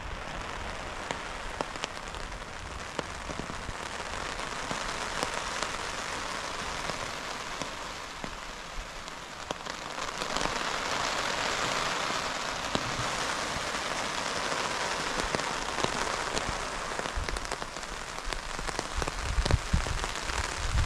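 Downpour of rain on the hammock tarp overhead: a dense patter of drops that grows heavier about ten seconds in. A few low bumps near the end.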